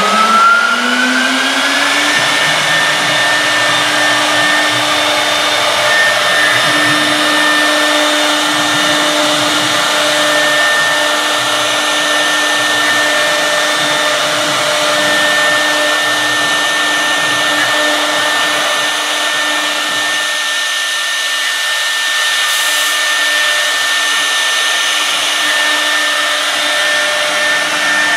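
CNC router's electric spindle spinning up, its whine rising in pitch for the first two seconds and then holding as a steady high whine. Over it runs the hiss of the router bit cutting grooves in the board.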